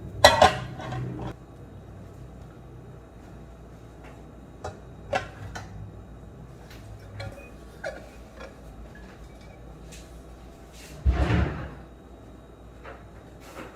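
Household handling sounds in a kitchen: two sharp knocks at the start, a few light clicks, and a longer, louder clatter about eleven seconds in, the kind a cupboard door makes.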